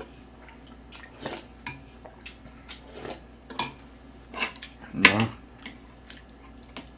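Chopsticks and a spoon clicking against a black soup pot and plates in scattered light taps while eating, the loudest about five seconds in.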